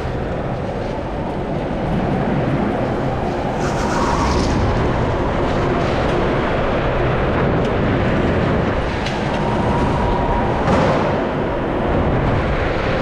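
Go-kart running at speed, heard from the driver's seat: a steady, dense engine and rolling noise, with brief higher-pitched squeaks about four seconds and again about ten seconds in.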